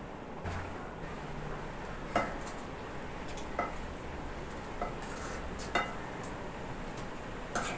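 Metal ladle stirring vegetable kurma in a metal pan, clinking against the pan about once a second. The stirring keeps the boiling gravy from sticking to the bottom.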